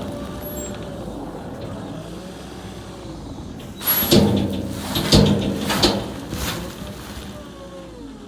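Small John Deere loader's engine running steadily, its pitch wavering slightly. From about four seconds in come several rough scraping, crunching noises as crusted snow is worked off a haylage ag bag.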